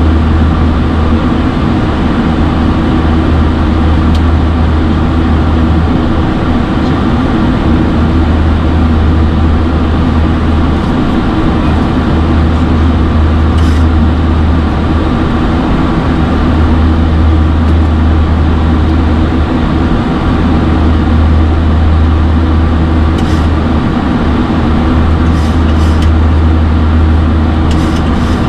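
Steady flight-deck noise of a Boeing 737-800 in flight: a constant drone of airflow and engines with a strong low hum. A few faint ticks sound about halfway through and near the end.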